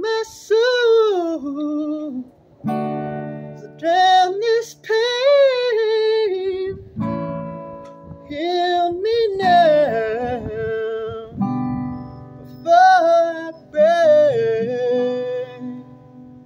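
Acoustic guitar strumming chords under a man's voice singing long, sliding notes: the closing bars of a song. The last chord rings out and fades away near the end.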